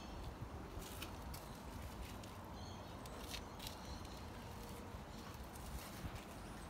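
Quiet backyard ambience with a low rumble and a few scattered soft clicks. A faint high chirp comes about two and a half seconds in.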